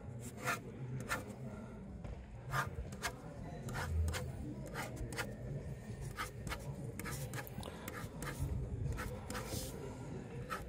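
A pen scratching and tapping on a long paper ballot, with irregular short scrapes and paper rustles. A dull bump sounds about four seconds in, and a low steady hum runs underneath.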